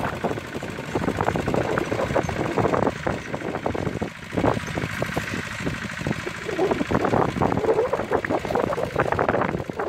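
Grillo two-wheel tractor (motocultor) engine running as it pulls a mouldboard plough through the soil, with irregular buffeting of wind on the microphone.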